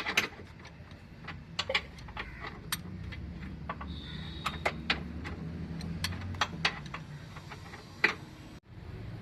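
Irregular metallic clicks and clinks of a wrench on the crankshaft bolt as a Fiat Punto engine is turned over by hand, checking the valve timing after a new timing chain has been fitted. A steady low hum runs underneath.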